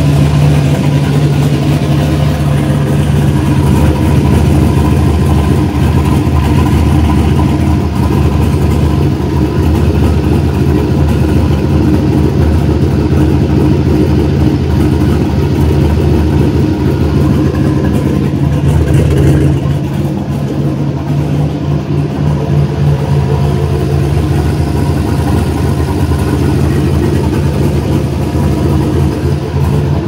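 Turbocharged engine idling steadily under the hood, giving off the unusual noise that appeared after a boost spike, which the owner suspects points to overboost damage. The sound becomes slightly quieter about twenty seconds in.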